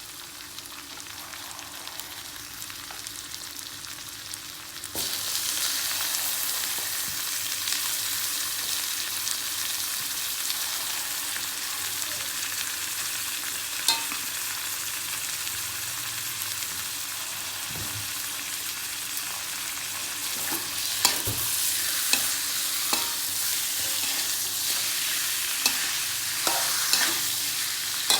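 Food sizzling in hot oil in a pan; the sizzle turns suddenly louder about five seconds in. Short clicks of a utensil stirring against the pan come now and then, more often near the end.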